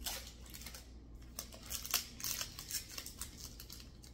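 Foil wrapper of a Magic: The Gathering booster pack crinkling and tearing as it is opened by hand: a run of short crackles, with a sharper one about two seconds in.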